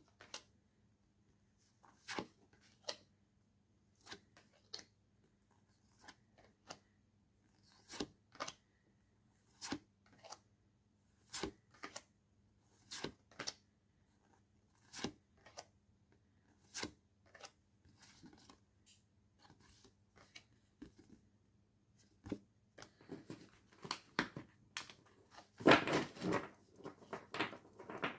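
A stack of paper postcards being flipped through one card at a time, each card giving a short papery snap about every one to two seconds. Near the end comes a denser rustle with knocks as the stack is gathered and squared up on a wooden tabletop, the loudest part.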